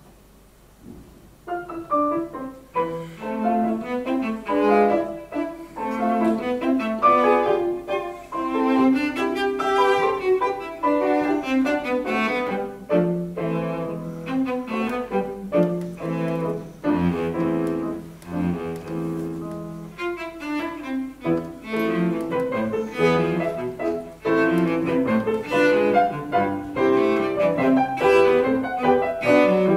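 Bowed cello playing with grand piano accompaniment. The music enters about a second and a half in, after a brief hush.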